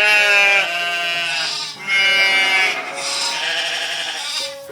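Sheep bleating: two loud, wavering bleats about two seconds apart, with softer bleating in between and after.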